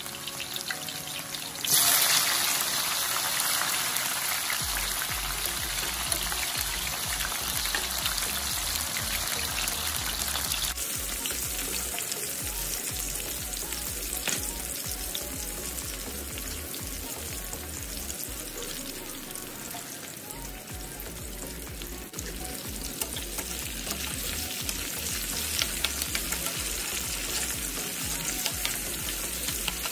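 Thin sweet potato slices deep-frying in hot oil in a pan, sizzling steadily. The sizzle jumps sharply louder about two seconds in, as more slices go into the oil, then settles into an even crackle.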